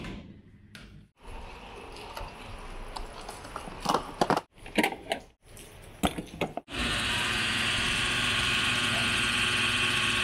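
Refuelling a car at a petrol bowser: a few short knocks and clicks as the nozzle goes into the filler, then from about seven seconds in a steady hum with a faint high whine from the bowser's pump.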